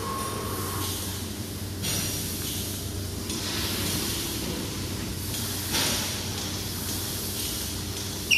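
Fiber laser tube-cutting machine at work on rectangular steel pipe: the cutting head's assist gas hisses, swelling and easing off several times, over a steady machine hum. A short sharp ring near the end.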